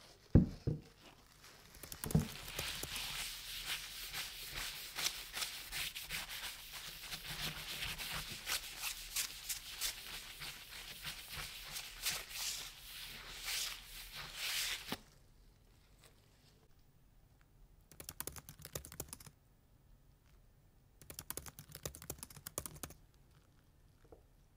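Cloth soaked in acetone rubbed briskly over the polished sole of an antique iron, a steady scratchy wiping with many small ticks that stops about fifteen seconds in, followed later by two shorter bouts of wiping. Two sharp knocks come just before the rubbing starts.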